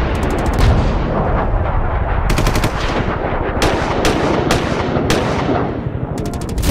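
Sound effect of rapid automatic gunfire in several short bursts over a heavy, continuous low rumble.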